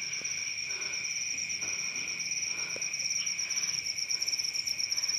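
Chorus of night insects such as crickets, trilling steadily at a high pitch with a second, lower steady note under it.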